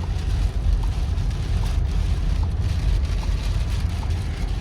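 Steady low rumble of a vehicle under a hiss of blizzard wind, with a faint short beep repeating evenly about every 0.8 seconds.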